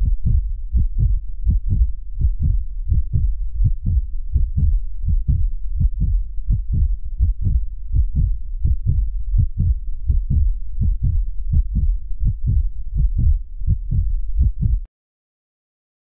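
Heartbeat sound: a steady, even rhythm of low thumps, about two to three a second, that stops abruptly near the end.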